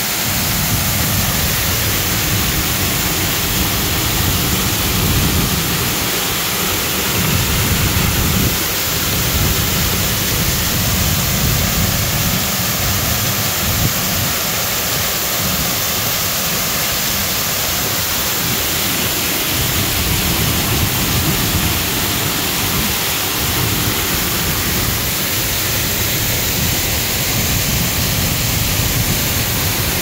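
Selvallafoss waterfall heard from just behind its falling curtain: a steady, loud rush of falling water and splashing spray. Gusts of wind buffet the microphone with an uneven low rumble.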